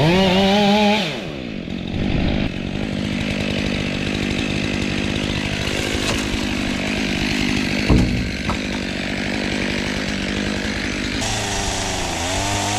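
Two-stroke chainsaw revving up, then running steadily as it cuts, likely into palm or tree wood. There is a sharp thump about eight seconds in, and the engine revs up and down again near the end.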